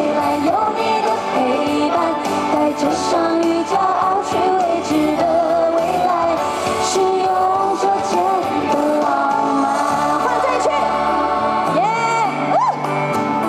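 Live pop band music with singing, continuing through the song.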